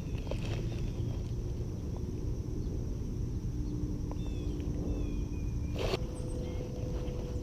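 Steady low rumbling outdoor noise, with a few faint bird chirps around the middle and a single sharp knock about six seconds in.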